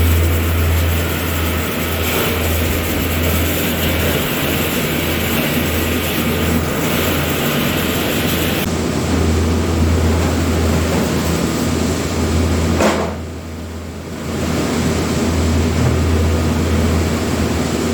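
A motor or engine running steadily: a loud, constant low hum under a steady hiss. It dips briefly about thirteen seconds in.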